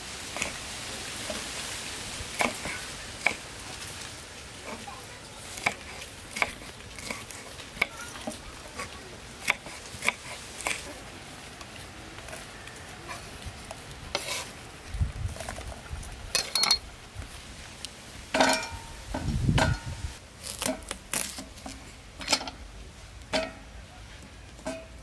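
Large kitchen knife chopping red chillies and lemongrass on a thick round wooden chopping board: irregular sharp knocks of the blade on the wood, a second or so apart. In the second half come a couple of dull thumps and a busier clatter of things being handled and set down.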